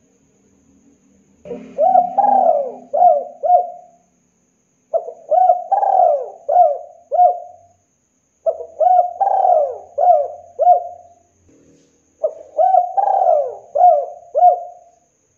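Spotted dove cooing: four phrases of its calls, each a run of about five short rising-and-falling coos, spaced about a second apart.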